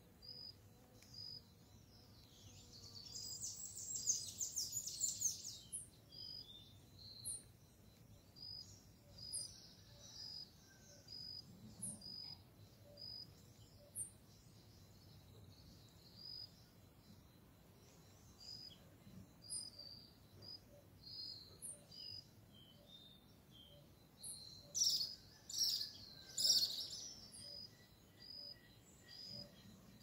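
Birds calling: a steady run of short, high chirps repeats throughout, broken twice by louder bursts of rapid chattering calls, about three seconds in and again near the end.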